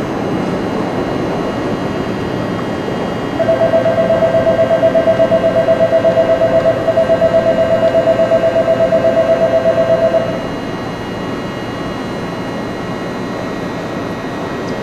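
A platform departure bell rings for about seven seconds, starting a few seconds in: a loud, rapidly pulsing two-tone electronic ring, then it stops. Under it, a steady hum and hiss from the train standing at the platform.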